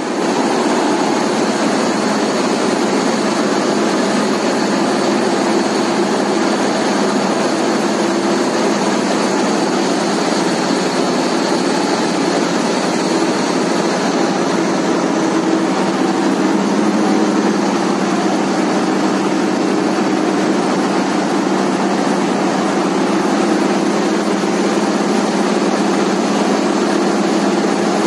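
Boat's inboard marine diesel engine running loud and steady, heard up close in the engine room. The engine is being pushed hard to drive a grounded, overloaded boat, and the owner fears it is close to breaking.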